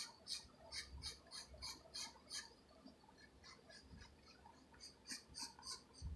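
Wooden pencil scratching on paper in short, quick strokes, about three a second, thinning out in the middle and picking up again near the end.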